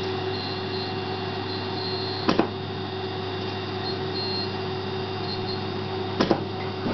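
Dental laser welding machine humming steadily, with two sharp double clicks, about two seconds in and again near the end, from the laser firing weld pulses on the implant bar.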